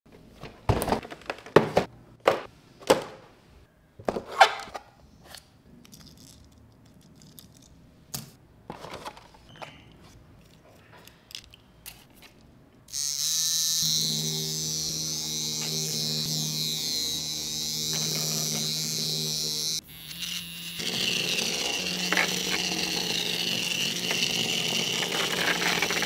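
Scattered clicks and knocks of plastic toys and packaging being handled. Then, about halfway through, the steady buzz of a remote-control toy insect's small electric motor running; it briefly cuts and comes back with a different tone about three-quarters of the way in.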